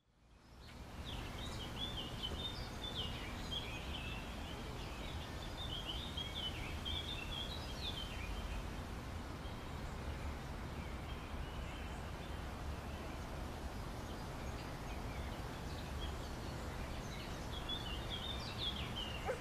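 Outdoor ambience fading in: a steady low background rumble with birds chirping, busiest in the first several seconds and again near the end.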